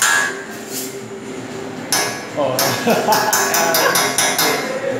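Metal spatula clacking against the steel teppanyaki griddle: single sharp clacks near the start and about two seconds in, then a quick run of about eight clacks in the second half.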